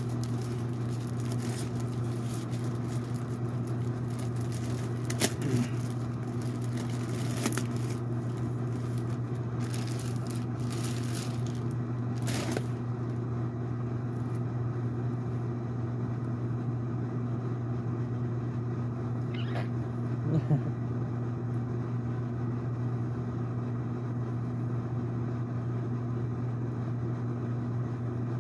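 Clear plastic packaging crinkling and rustling as a plush bear is pulled out of its bag, over a steady low hum. The crinkling stops about twelve seconds in, leaving the hum with a couple of small knocks.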